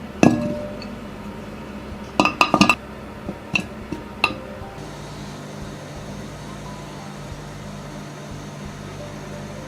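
Sharp clinks of kitchen utensils against glass dishes: one just after the start, a quick run of about four a couple of seconds in, then three more single clinks. From about halfway a steady low hum runs on to the end.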